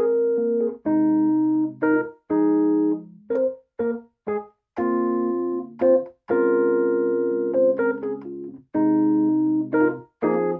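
Chords played on a software keyboard instrument from a Donner DMK25 mini MIDI controller. Chords are held for about a second or more and cut off sharply when the keys are released, with short quick notes in between.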